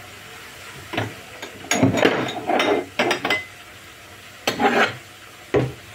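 Dishes and cutlery clattering in about six short bursts as kitchenware is handled, the busiest stretch about two to three seconds in.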